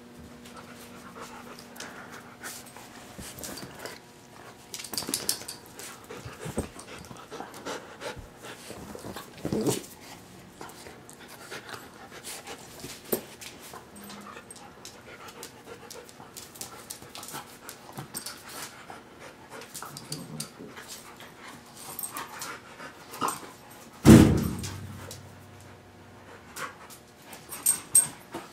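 Two dogs play-fighting: panting and scuffling, with many small clicks and knocks. One loud thump near the end.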